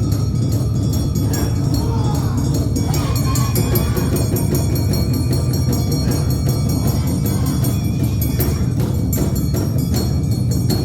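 Awa Odori festival band playing the dance music: drums with steady, rapidly repeated strikes of ringing metal kane gongs.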